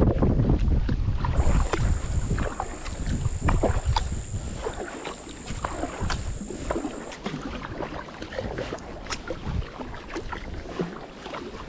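Kayak paddle strokes: the blade dipping and splashing, with water dripping and small knocks, and wind buffeting the microphone, heaviest in the first few seconds. A steady high whine runs from about a second in until about seven seconds in.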